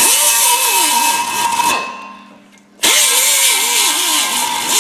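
Air die grinder with a red abrasive disc, the 'whizzy wheel', run twice in bursts of about two seconds against the rusty steel caliper mounting pads on the axle flange to shine them up. Its pitch wavers as the disc loads on the metal, and it spins down after each release.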